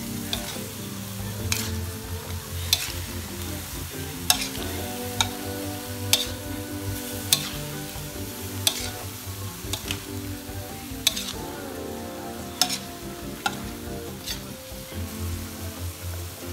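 Bean sprouts and spring onion frying in a hot metal wok, stirred and tossed with a metal spatula: a steady sizzle with a sharp clank of the spatula against the wok about once a second.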